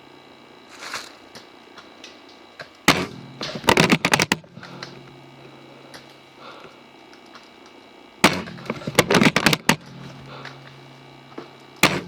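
Spring-powered airsoft sniper rifle (Maruzen Type 96) shooting: a sharp crack followed by about a second of rapid clicking and clatter, heard about three seconds in, again about eight seconds in, and once more near the end.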